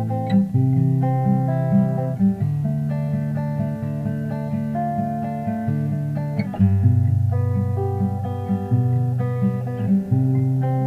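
Background music: plucked guitar with a bass line playing a steady melody.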